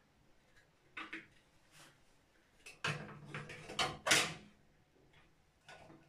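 A soap dish and toothbrush cups being set down and shifted on a metal wire bathroom shelf: light clicks about a second in, then a cluster of knocks and scrapes between about three and four seconds in, the loudest just after four seconds.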